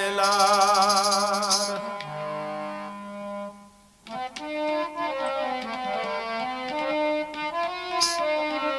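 Devotional chirja music: a sung note held with a wavering vibrato ends about two seconds in. Sustained keyboard tones follow, then the sound drops almost to silence for a moment. From about four seconds an instrumental passage of keyboard tones with light percussion plays.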